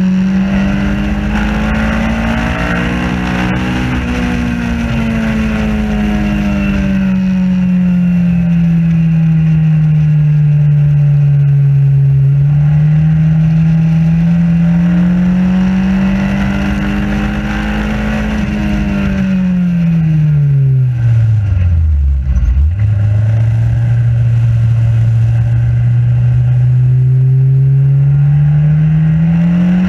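Race car engine heard from onboard in an open cockpit, running hard at speed, its note rising and falling as the car drives the lap. About twenty seconds in the revs fall away steeply as the car slows for a corner, then jump back up and climb steadily as it accelerates out.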